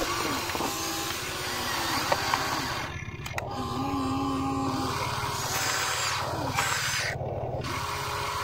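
Small electric gear motors of a Huina radio-controlled excavator whirring as it tips a bucket of soil into a toy dump truck and swings its arm back round. The motor whine rises and falls in pitch each time a movement starts and stops, over a steady low hum.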